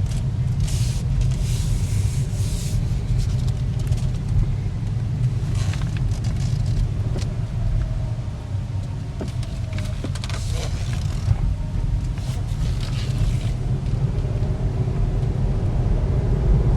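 2014 Cadillac ELR driving at low speed, heard from inside the cabin as a steady low road and tyre rumble, with a few brief rustles.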